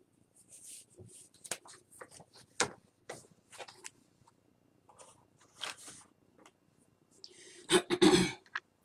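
Scattered clicks, taps and rustles of someone handling the recording device close to the microphone. A loud rustling bump comes near the end as the person leans in toward it.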